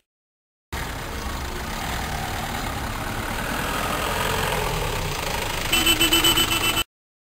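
An engine running under a steady rush of noise, its pitch slowly rising and then easing off. Near the end comes a fast, evenly pulsing tone, about nine pulses a second, before the sound cuts off.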